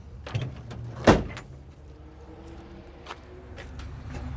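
A single loud sharp thump about a second in, with a few lighter clicks and knocks around it over a low steady hum.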